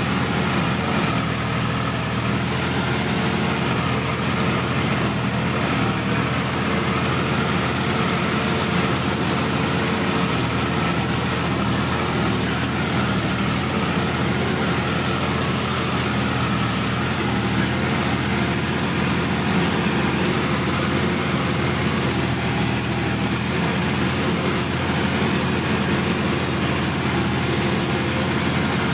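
Sonalika DI-50 RX tractor's diesel engine running at a steady speed while the tractor drives along, heard from the driver's seat.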